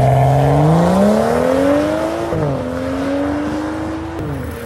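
Exhaust of a BMW F30 3 Series sedan with an aftermarket modified exhaust, accelerating hard and rising in pitch through a gear. It upshifts with a sudden drop in pitch a little over two seconds in, pulls again and shifts once more near the end, fading as the car pulls away.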